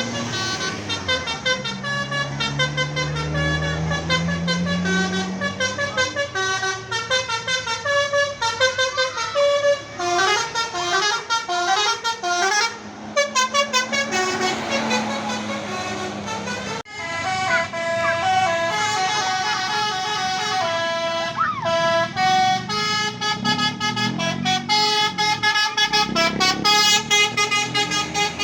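Telolet multi-tone bus horn playing fast, repeating tunes of short stepped notes, with a bus engine running underneath that rises in pitch in the first few seconds as it pulls away.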